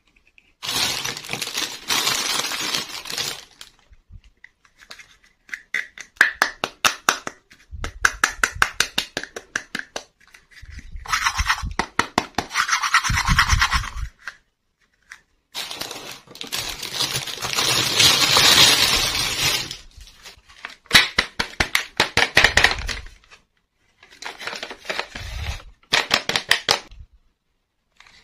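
Clear plastic wrap crinkling and small hard plastic toy furniture pieces clicking and tapping as they are handled, in bursts of crackle and quick runs of clicks with short pauses between.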